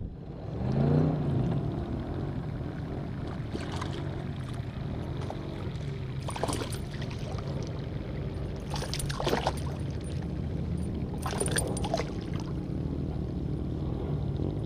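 Water splashing and dripping beside a kayak: several short splashes over a steady low rumble.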